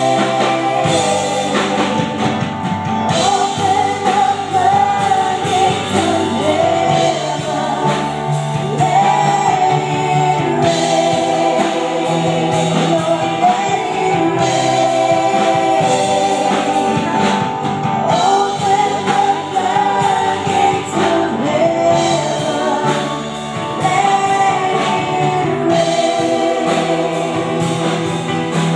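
A group of women singing a gospel worship song together, accompanied by instruments with a steady drum beat.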